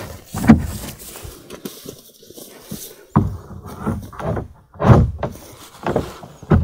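Several irregular dull knocks and thumps of a long pole against the wooden hull of an upturned boat as its end is worked in under the edge to lever the boat up. The loudest knock comes about half a second in.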